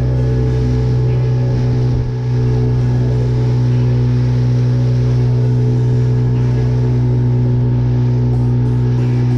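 Outboard motor of a small wooden fishing boat running steadily at cruising speed, with a brief dip in its sound about two seconds in.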